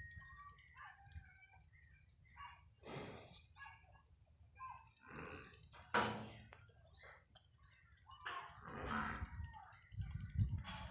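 Small birds chirping and twittering over a low rumble, with a few short noisy swishes.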